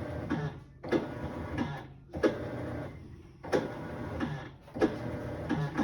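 Kenmore Series 500 top-load washer making a grinding noise in repeated harsh bursts, about one every second and a half. It is the sign of a worn basket driven hub whose shallow, worn teeth no longer grip, leaving the drum not spinning.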